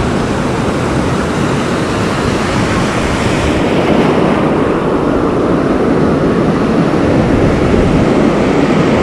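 Ocean surf rushing and foaming around the wading angler in the shallows: a steady, loud wash of noise that turns a little duller about three and a half seconds in.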